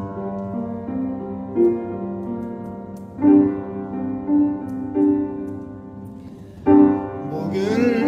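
A piano plays a slow introduction. Chords are struck about every three and a half seconds, with melody notes between them, and each is left to ring. Near the end a man's voice comes in singing with vibrato.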